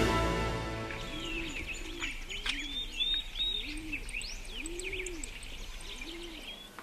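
Doves cooing in a repeated series of low rising-and-falling notes, with small birds chirping and twittering over them. The tail of a brass fanfare fades out at the start.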